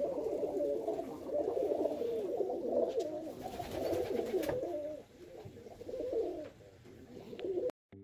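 A loft full of domestic pigeons cooing, many birds at once in a continuous overlapping chorus. The sound cuts off abruptly near the end.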